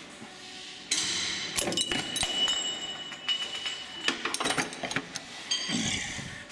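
Metal tools and the removed air-conditioning clutch pulley clanking and clinking. A high ringing tone hangs for about two seconds after the first clatter, and another burst of clinks with ringing comes near the end.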